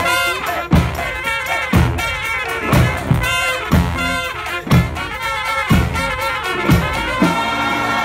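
Brass band of saxophones, trombones, trumpets and sousaphones playing a lively tune, with a heavy accented beat about once a second. About seven seconds in, the band shifts to long held chords.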